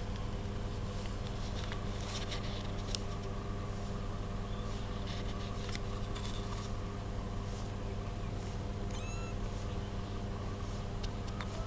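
A kitten gives one short, high mew about nine seconds in, over a steady low hum and scattered light clicks.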